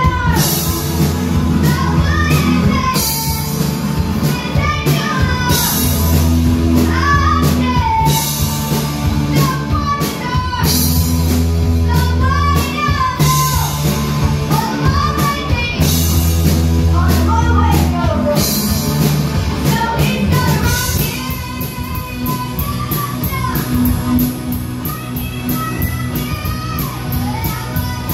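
Live rock band playing a song with a singer: drum kit with crashing cymbals, heavy bass notes and a sung melody on top. The band drops a little in loudness about two-thirds of the way through while the cymbals keep a fast, even beat.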